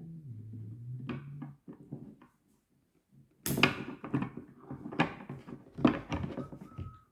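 A low steady hum that dips slightly in pitch and stops about a second and a half in, then after a short pause a run of knocks and clatter as the toy's parts and tools are handled and set down on a hard surface.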